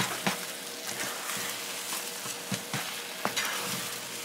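Scrambled eggs sizzling in a small nonstick frying pan while a spatula stirs them, with several short scrapes of the spatula across the pan.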